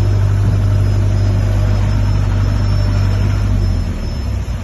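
A 62.5 kVA diesel generator set in a soundproof acoustic enclosure running steadily with a low, even hum. The hum drops away and grows quieter near the end.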